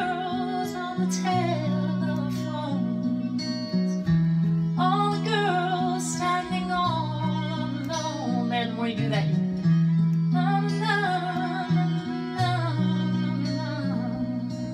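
Acoustic guitar playing held low notes that change every second or two, under a melody with vibrato that starts a new phrase about every four seconds.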